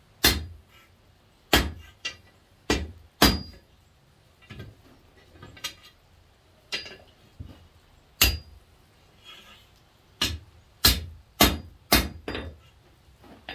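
Hand hammer striking red-hot half-inch square mild steel on an anvil, each blow with a short metallic ring: the split, forge-welded end of a poker being straightened. The blows come irregularly, lighter and sparser in the middle, with a quick run of heavy strikes near the end.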